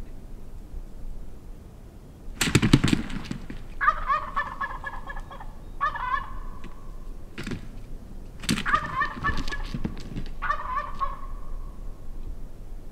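Gould's wild turkey toms gobbling, about five rattling gobbles in two bouts, the first starting a couple of seconds in and the second about halfway through.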